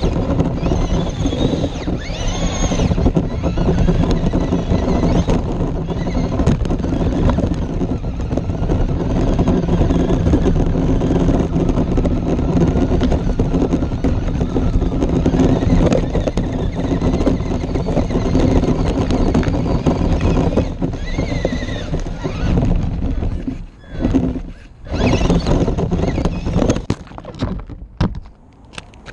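Onboard sound of a Traxxas LaTrax SST RC car driving over gravel: its electric motor and drivetrain whine, rising and falling with throttle at times, over the crunch and rattle of stones under the tyres. Near the end the sound drops out and breaks into scattered knocks as the car tumbles over.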